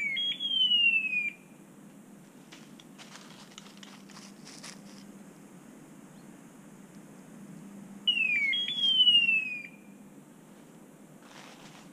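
Hunting dog's electronic beeper collar sounding twice, about eight seconds apart: each time a short downward-sweeping tone, then a longer one gliding down. Faint twig snaps and rustles in the undergrowth come between them.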